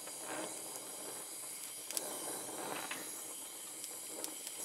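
Oxy-acetylene torch flame hissing steadily while brazing a steel hydraulic line, with a few faint ticks.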